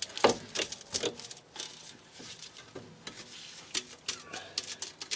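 Irregular small metal clicks, clinks and scrapes as an old clamp is worked and pried loose from an exhaust pipe by hand.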